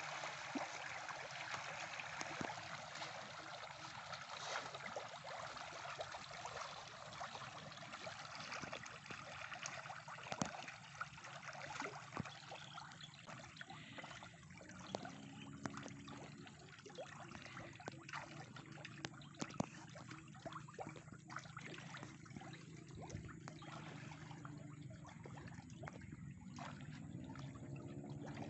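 Tilapia in a floating river fish cage splashing at the surface as they take thrown feed: a dense wash of splashing at first, thinning after about ten seconds into scattered small splashes and plops as the feeding dies down.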